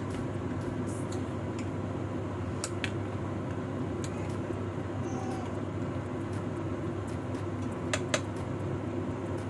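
Pot of rice porridge (lugaw) boiling on a gas stove: a steady low hum with a few sharp pops, a pair about two and a half seconds in and another pair about eight seconds in.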